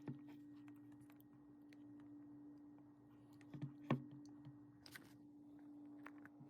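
Quiet room tone with a steady low hum and a few scattered small clicks and taps, the sharpest about four seconds in.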